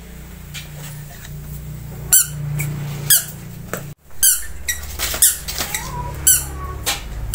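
A series of short, high-pitched squeaky chirps, several in a row about a second apart, each falling steeply in pitch, over a steady low hum.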